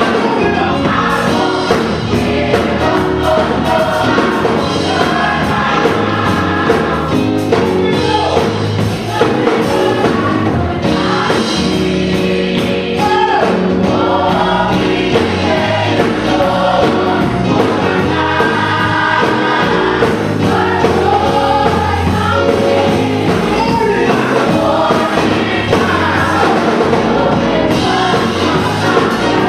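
Gospel choir singing with a live band: voices together over drums, bass and keyboard.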